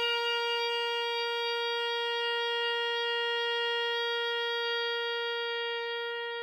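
Oboe holding one long, steady note that slowly fades toward the end.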